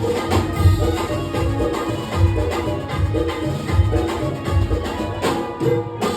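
Music of an Agri-Koli folk song played through a sound system, with a steady heavy drum beat about twice a second under a melody line. The beat drops out briefly near the end.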